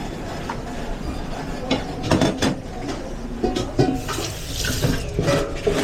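Restaurant kitchen clatter: dishes, pans and utensils knocking together in a quick irregular series, with a short stretch of hiss, like running water, about four seconds in.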